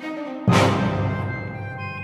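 Background orchestral music, with a sudden loud low hit about half a second in that rings on into held notes.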